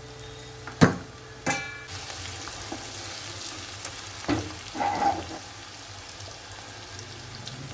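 Sliced onions sizzling as they fry in oil in an iron wok. There is a sharp knock about a second in and a ringing metallic clink just after, and the sizzle grows louder from there.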